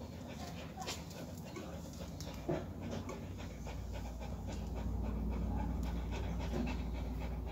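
Siberian husky panting rapidly through an open mouth while in labour. A low hum underneath grows louder about halfway through.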